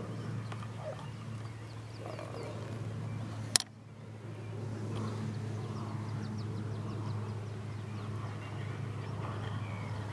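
Outdoor background sound: a steady low hum with faint, short high chirps in small runs, and one sharp click about three and a half seconds in.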